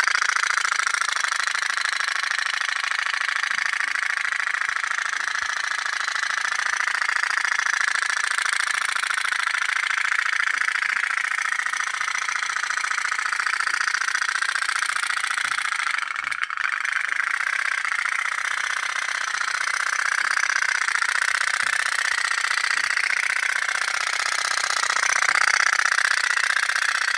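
Candle-heated toy pop-pop steam boat running: its little brass diaphragm boiler rattles in a fast, steady buzz as the water boils and spits steam out of its tubes.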